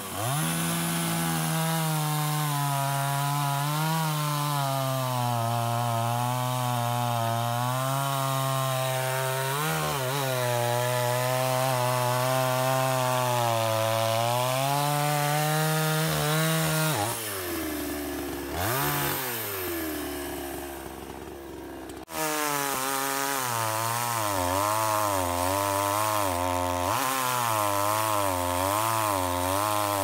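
Two-stroke petrol chainsaw cutting through a felled tree trunk, the engine note wavering up and down as the chain bites into the wood. A little past the middle the engine drops off to a lower, quieter note for a few seconds, then it is back at full speed cutting again.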